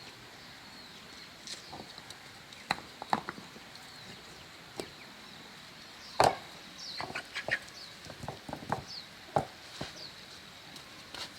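Irregular sharp knocks and taps, the loudest about six seconds in followed by a quick cluster, with a few short high chirps between them.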